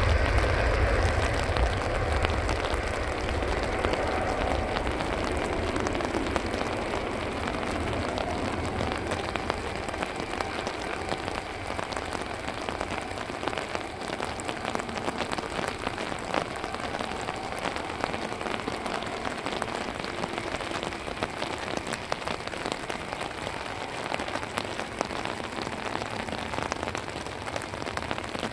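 Steady rain, with many drops tapping close by. At first the low rumble of the Airbus A380's four jet engines at takeoff power is also heard, fading over the first several seconds as the airliner rolls away down the runway.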